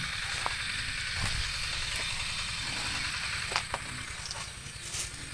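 Steady outdoor hiss with a low rumble of wind or handling on the microphone, broken by a few faint clicks and knocks.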